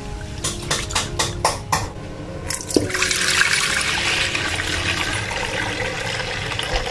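Hands swishing rice in water in an aluminium pot, a run of separate splashes. About three seconds in, cloudy rice water is poured in a steady stream into a large pot of water.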